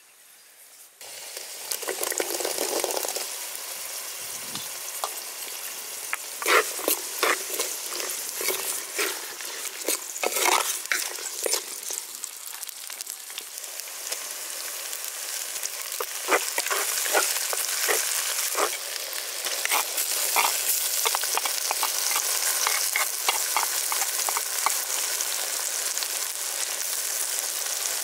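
Food sizzling and crackling in hot oil in a pan, stirred, with short sharp scrapes and clicks of the stirring throughout. The frying starts about a second in.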